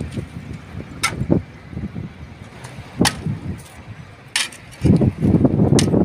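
Metal hoe dragging and spreading wet concrete over steel reinforcement bars, with several sharp knocks as the blade strikes the bars and slab.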